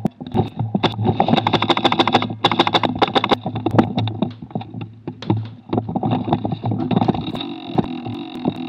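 Airsoft rifle firing close to the rail-mounted camera: two long bursts of rapid shots about a second in, then shorter bursts and scattered single shots, over a steady low hum.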